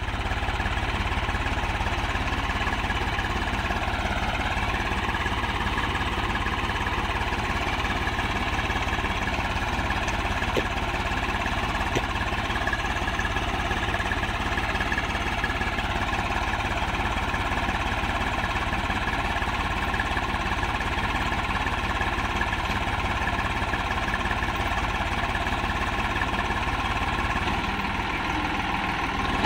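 Swaraj 735 FE tractor's three-cylinder diesel engine running steadily while the tractor, towing a loaded sand trolley, is stuck with its rear wheels dug into loose sand.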